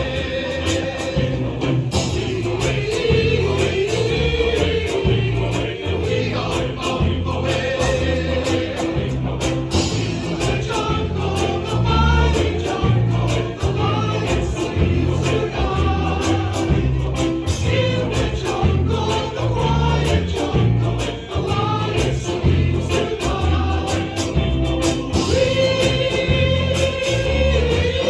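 Men's chorus singing sustained chords with no clearly sung words, over accompaniment with a steady pulsing bass line.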